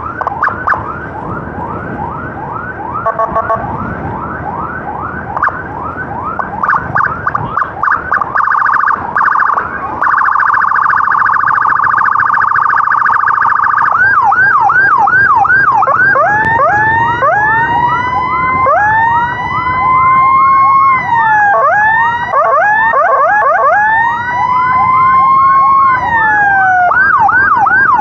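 Electronic ambulance siren cycling through its tones: a fast yelp, then a quick warble and a very rapid trill before the middle, then back to the yelp with a slower rising-and-falling wail layered over it in the second half.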